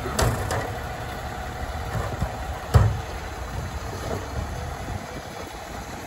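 Autocar ACX garbage truck's engine running steadily while its Labrie Automizer side-loader arm lowers a trash cart back to the curb, with a few knocks from the arm and cart, the loudest nearly three seconds in.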